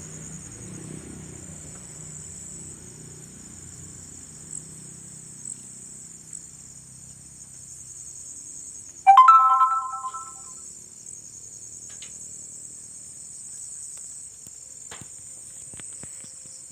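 Crickets chirping in a steady, high-pitched night chorus. About nine seconds in, a loud short chime of a few stacked tones sounds once and fades away over about a second.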